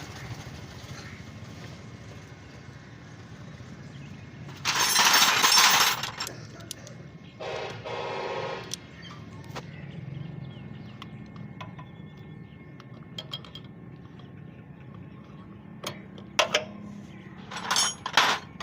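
Metal tools and engine parts clinking and rattling during motorcycle engine work, with a loud harsh burst lasting about a second and a half around five seconds in, a shorter rattling buzz soon after, and a few sharp clicks near the end.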